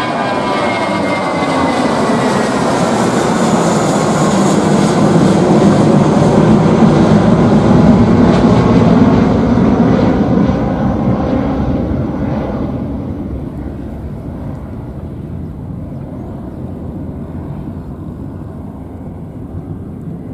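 Twin-engine jet airliner climbing out after takeoff: a jet roar with a whine that falls in pitch at first. It builds to its loudest about eight to ten seconds in, then fades to a distant rumble.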